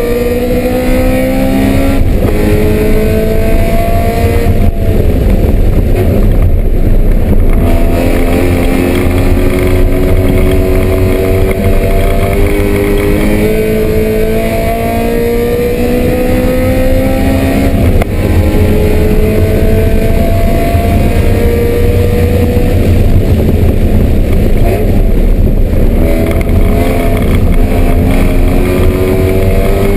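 BMW M3 race car engine pulling hard, its pitch climbing for several seconds and then dropping back at each upshift, again and again, over a steady low drone.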